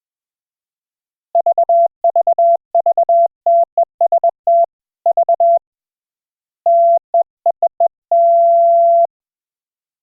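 Morse code (CW) audio: a single steady mid-pitched tone keyed on and off in quick dots and dashes, with a short pause about halfway through and one long dash to finish.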